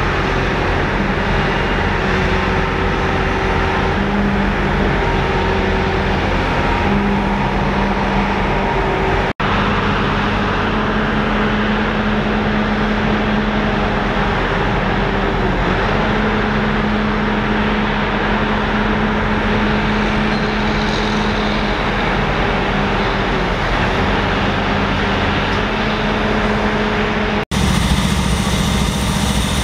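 Diesel engines of heavy equipment (a mobile crane and a tracked excavator) running steadily, the engine note shifting slightly up and down. The sound breaks off for an instant twice, about nine seconds in and near the end.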